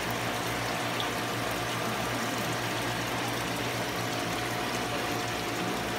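Aquarium pump running steadily, with constant water-movement noise and a low, even hum.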